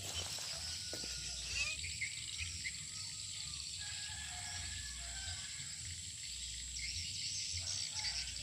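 Outdoor ambience: steady high-pitched insect buzzing with a few short bird chirps over a low rumble.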